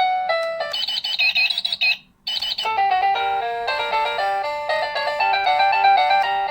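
Wireless doorbell's speaker playing its built-in electronic chime melodies, stepping to a new tune with each press of the melody button. A simple beeping tune gives way about a second in to a chirping, bird-call-like melody, which cuts off abruptly about two seconds in. After a brief break another beeping tune starts.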